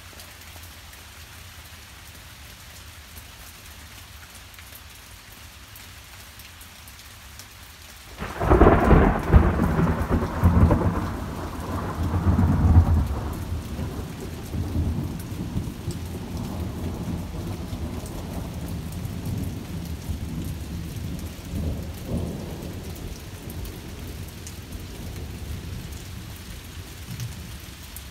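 Steady rain falling in a thunderstorm, then about eight seconds in a sudden loud thunderclap that rolls on as a long rumble, slowly fading over the following fifteen seconds or so.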